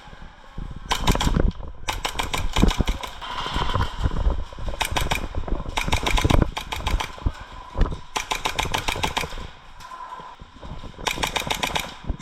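Airsoft guns firing rapid full-auto bursts, about six bursts of a second or so each with short gaps between them.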